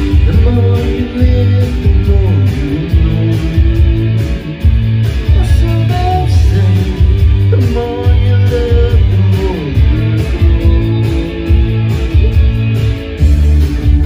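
Karaoke backing track with guitar over a heavy, pulsing bass beat, with some singing into a handheld microphone over it.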